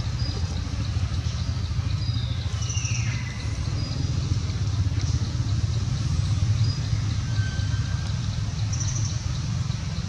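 A steady low rumble, with a few faint high chirps and a short falling whistle about three seconds in.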